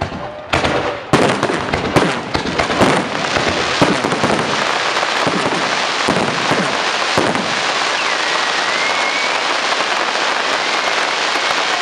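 Aerial fireworks going off in a rapid salvo: sharp bangs, several a second, for about seven seconds. They give way to a dense, steady crackle of crackling-star effects.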